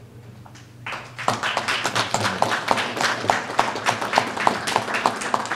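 A small group applauding, starting about a second in, with one nearby clapper's claps standing out at about three a second.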